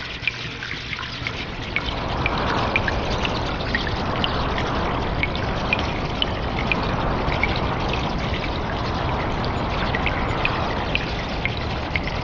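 Water trickling and dripping in a cave: a steady run of water with many quick, sharp drips, several a second, that swells a little about two seconds in.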